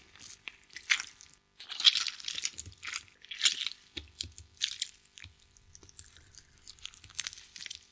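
A ripe tomato being squished, giving a series of wet, crackly squelches that come irregularly, roughly one a second, with short quieter gaps between them.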